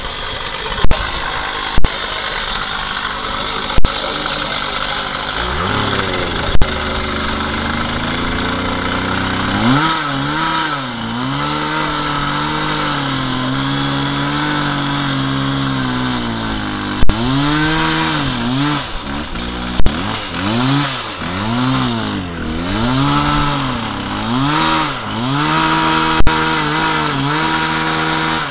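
Petrol cut-off saw revving up about six seconds in, then cutting into a metal wheel clamp. Its engine note sags and recovers again and again as the disc bites, over a harsh grinding noise, with several short sharp clicks.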